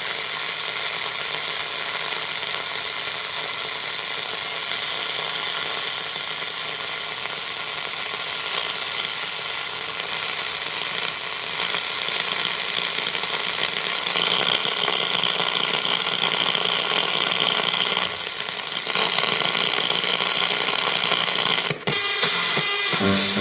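Harsh noise music: a dense wall of grinding static with a mechanical, ratchet-like texture, cutting in abruptly. It grows louder about two-thirds of the way through and drops out briefly twice near the end.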